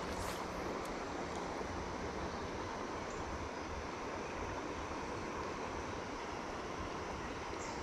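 Steady rush of river water flowing over a shallow, rocky trout stream.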